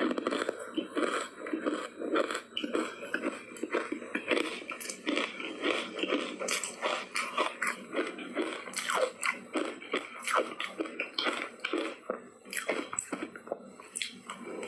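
Ice coated in matcha tea powder being bitten and chewed: a fast, uneven run of sharp crunches.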